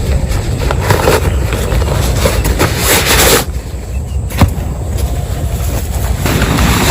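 Heavy rain pouring, with wind rumbling on the microphone. A louder rush about three seconds in drops off abruptly.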